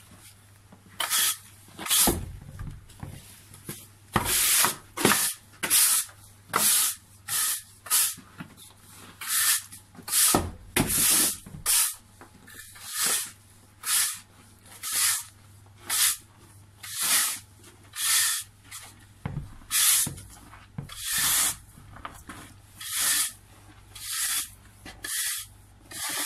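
Snow shovel scraping through snow in repeated strokes, roughly one a second.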